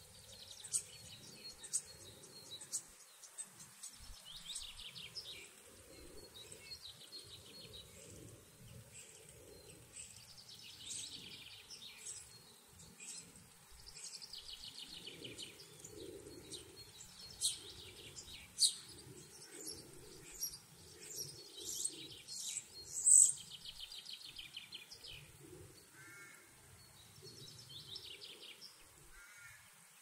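Several songbirds singing in a morning chorus: overlapping trills, twitters and sharp high chirps, the loudest chirp about three-quarters of the way through. Softer low sounds repeat beneath them about once a second.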